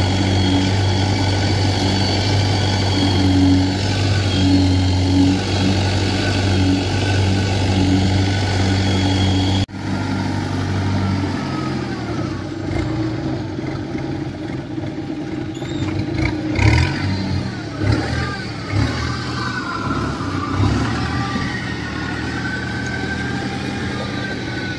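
Engine of a Kubota rubber-tracked machine loaded with rice sacks running, a steady hum at first; after a cut about ten seconds in, the engine note is rougher and uneven as the machine moves on its tracks, with several knocks and clanks.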